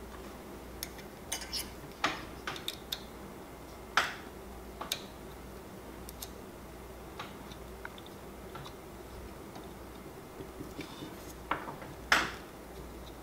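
Small metal clicks and taps of screws and all-metal hotend parts being handled and threaded together on a 3D printer's extruder carriage, scattered and irregular, the loudest about two, four and twelve seconds in, over a faint low hum.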